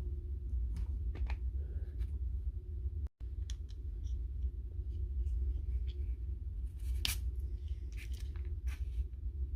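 Wire cutters snipping and handling wires: scattered short sharp clicks and snips over a steady low hum, with a brief dropout about three seconds in.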